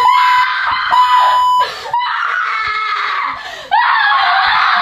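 Woman screaming in fright, loudest in the last second. Early on, a steady bleep tone sounds twice over speech.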